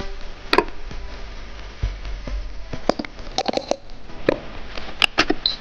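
Scattered sharp clicks and taps from handling a small electric tea maker under repair, over a faint low hum, with a short high electronic beep near the end.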